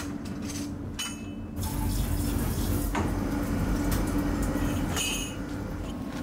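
Water running from a tap into a stainless steel sink, over a steady low hum, with a sharp knock about three seconds in and a brief hiss near five seconds.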